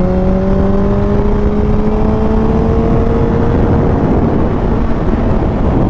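Motorcycle engine pulling under steady acceleration, its pitch rising slowly for about four seconds, over a constant low wind rush; the engine tone then fades under the wind.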